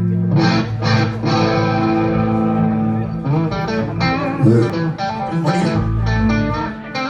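Rock band playing, led by strummed electric guitar chords that ring on, with a deep low note swelling about six seconds in.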